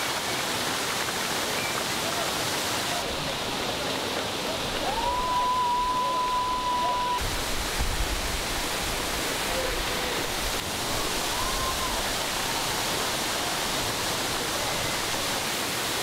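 Steady rushing of the Pliva waterfall, its water pouring down into the river pool.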